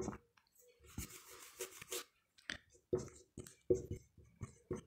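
Whiteboard marker scratching across a whiteboard as letters are written: a longer stroke about a second in, then a run of short strokes.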